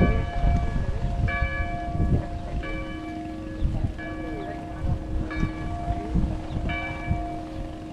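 A bell struck at an even, slow pace, about six strikes a little over a second apart, each ringing on with several clear tones, over a low rumble.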